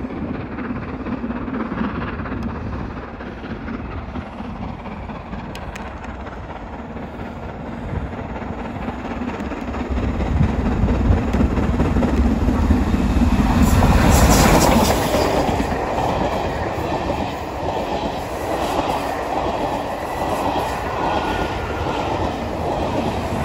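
LMS Black 5 two-cylinder 4-6-0 steam locomotive running through at speed. It grows louder as it approaches and is loudest as it passes about halfway through. Its coaches then roll past with the steady clickety-clack of wheels over rail joints.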